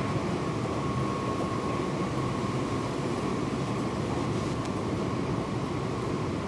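Running noise inside a Seibu 6000 series electric train, heard in the motor car MoHa 6252: a steady rumble of wheels and running gear, with a thin steady high tone through it.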